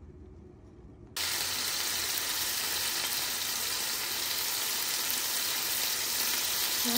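Pieces of chicken sizzling as they fry in oil in a pan, a steady dense hiss that starts abruptly about a second in.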